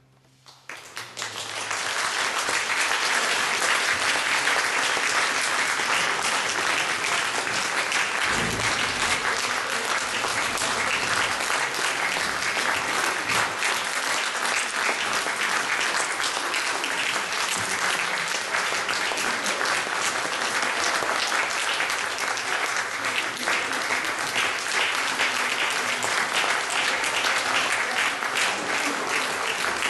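Concert-hall audience applauding, starting about a second in after a brief hush and then holding steady.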